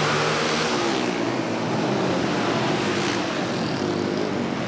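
Several flat-track racing motorcycles running hard together on a dirt oval, their engines overlapping in a steady loud drone whose pitch dips a little about halfway through.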